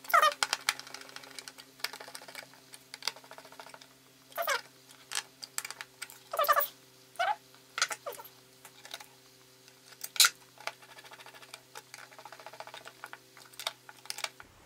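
Scattered light clicks and taps of hand work on an audio interface's circuit board and metal case, a screwdriver being set down and screws handled, over a steady low hum that cuts off near the end. A few short, high, pitched squeaks come through among the clicks.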